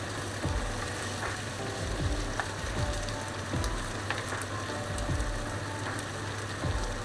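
Chicken and dried chillies sizzling steadily in sauce in a nonstick wok over a gas flame, with a few soft low thumps.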